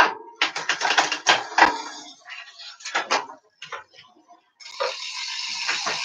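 Road bike drivetrain being shifted by hand: shifter clicks and the chain clattering as it moves onto the big chainring and smallest rear cog while the crank is turned. About four and a half seconds in, a steady whirr of the chain and rear hub spinning as the crank is turned freely.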